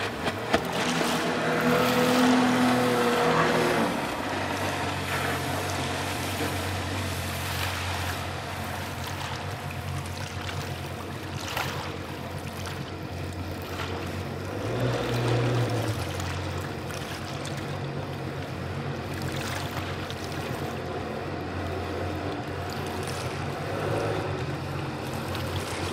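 Jet boat's engine running, louder and higher with spray at speed for the first few seconds, then settling into a lower, steady drone as the boat slows, with a brief swell in the middle.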